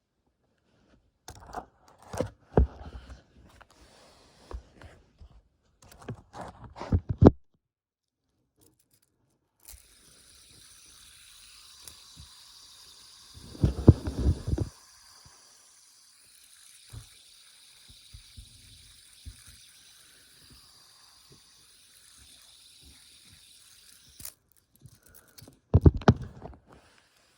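A fidget spinner being handled: bursts of clicks and knocks in four clusters, with a steady faint high hiss through the middle that cuts off suddenly.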